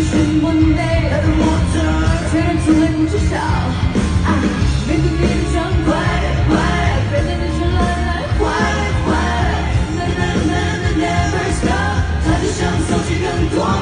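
A pop song sung live: a woman and a man singing a duet, with microphones, over full backing music.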